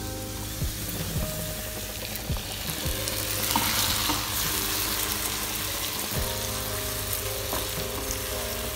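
Hot oil and fried masala in a non-stick pan sizzling as the watery ground masala paste is poured in and stirred with a wooden spatula, which knocks against the pan a few times in the first seconds; the sizzle swells about four seconds in.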